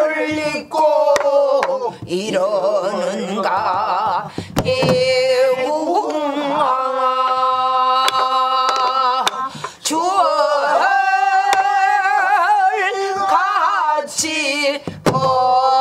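A group of men and women singing pansori together in long held notes with heavy wavering vibrato. A buk barrel drum is struck with a stick a few times between phrases to keep the rhythm.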